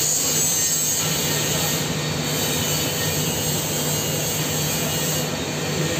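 TIG welding arc burning steadily on a steel pipe socket joint: a continuous hiss over a steady low hum.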